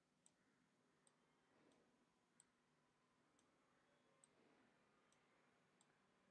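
Near silence, with about seven faint, sharp computer-mouse clicks spaced roughly a second apart.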